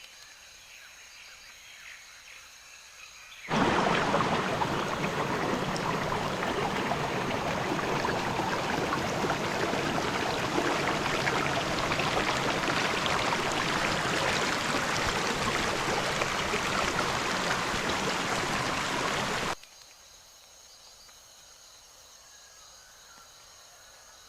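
Rushing stream water, a loud even rush that starts suddenly a few seconds in and cuts off sharply near the end. Before and after it only a faint, steady high insect buzz is heard.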